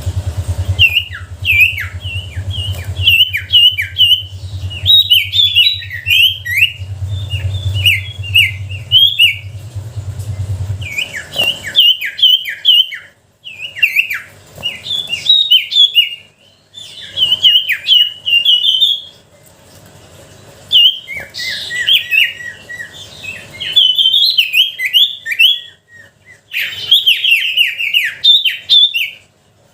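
Ashy tailorbird (sirtu) singing: phrases of quick, high, sharp chirps, each note dropping in pitch, repeated in bursts with short pauses between. A low hum runs underneath and stops about a third of the way in.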